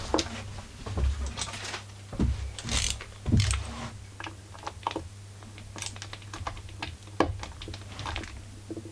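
Irregular clicks, taps and light knocks of hand tools and small chainsaw parts being handled, some heavier thumps among them, over a low steady hum.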